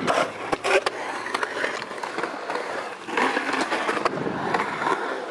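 Skateboard being ridden in a concrete bowl: a few sharp clacks of the board and trucks against the coping in the first second, then the steady rolling noise of the wheels on concrete, swelling again a little after three seconds.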